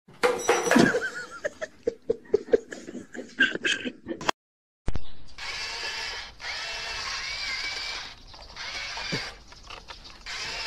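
Plastic crinkling and plastic water bottles clattering as a startled cat leaps off a cloth. After a short break there is a steady outdoor hiss with faint chirping.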